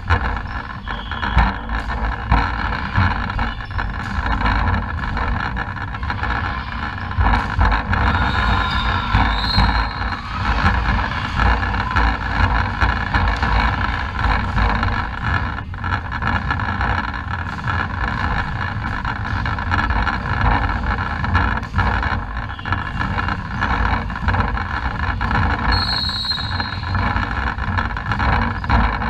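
Indoor volleyball game sound in a sports hall: a steady rumbling background noise, with scattered sharp knocks of the ball being played and a couple of brief high squeaks, one about a third of the way in and one near the end.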